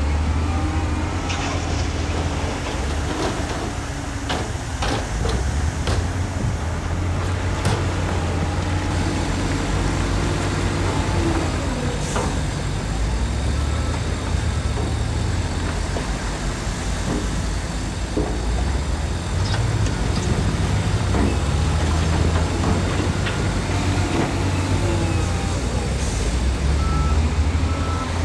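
Heavy diesel earthmoving machinery running under load with a deep, steady engine rumble, and a cluster of sharp knocks and clanks a few seconds in.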